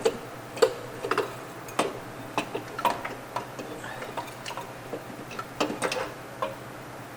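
Irregular metal clanks and knocks, a couple of dozen over several seconds, as the unbolted turbocharger assembly is worked loose and pulled out of the engine bay.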